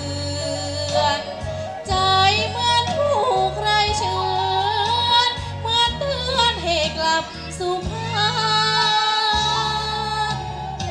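A young girl sings a Thai song into a microphone over an amplified backing track. Her voice slides and bends in pitch, held over a steady bass accompaniment.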